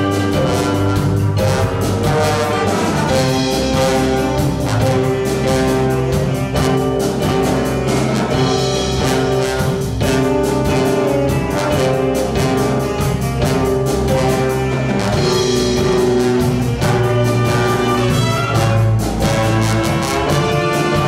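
Live jazz band playing: trumpets, saxophone and trombone holding notes over a drum kit keeping a steady beat.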